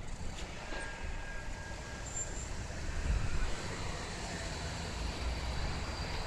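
Gold Coast G:link tram, a Bombardier Flexity 2 light-rail vehicle, pulling away from the stop: a steady low rumble with a faint high electric whine that slowly rises in pitch from about four seconds in as it gathers speed.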